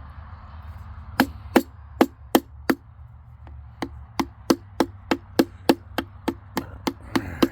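Hammer striking a tool in quick, even taps, about three a second: five strikes, a short pause, then a longer run of about a dozen. The hammer is chipping the watertight sealing material out of the screw holes on a large circuit breaker.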